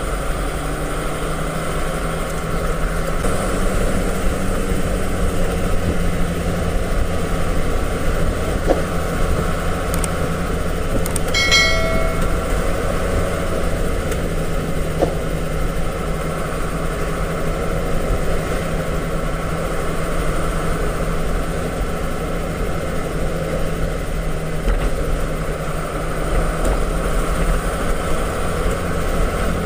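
Truck engine running steadily, heard from inside the cab while driving, with a brief high-pitched tone about eleven seconds in.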